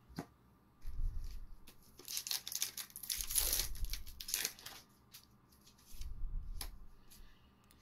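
A Magic: The Gathering booster pack's wrapper being torn open, a crinkly tearing and rustling that starts about two seconds in and lasts about three seconds. Dull handling bumps come before and after it.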